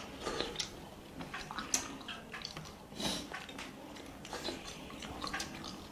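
Light, irregular clicks and taps of food and dishes being handled, with faint wet sounds.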